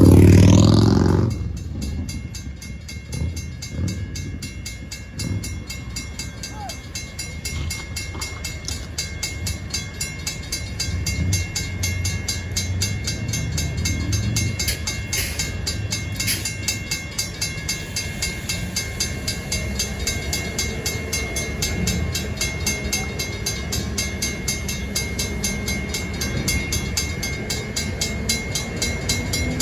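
Train rolling past, its railcars rumbling over the rails with uneven low knocks and a thin steady high squeal. The sound is loudest for about the first second, then drops to a steady rumble.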